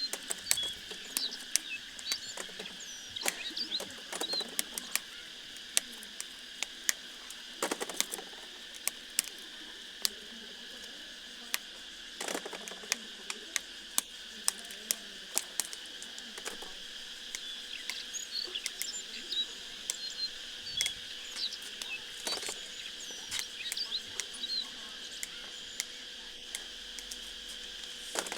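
Steady insect drone at two pitches with small birds chirping now and then. Frequent sharp clicks and taps of hands working come through over it.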